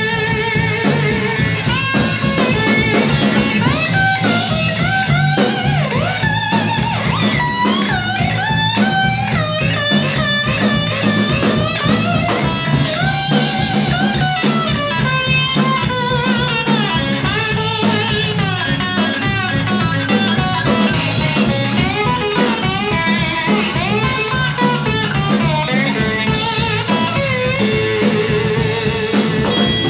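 Live blues band with an electric slide guitar playing a lead full of sliding notes over electric bass and a drum kit keeping a steady beat.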